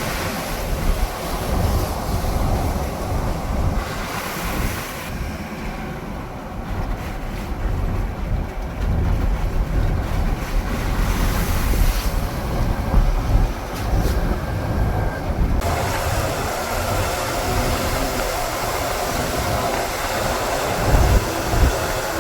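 Steady rushing noise of wind buffeting the microphone, with a heavy low rumble. Its character changes abruptly a few times, about four, five and fifteen seconds in.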